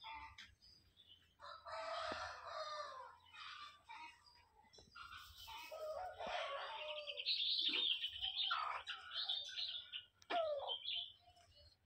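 Chickens calling: a rooster crowing and clucking mixed with high chirps, in repeated calls, loudest about two-thirds of the way through.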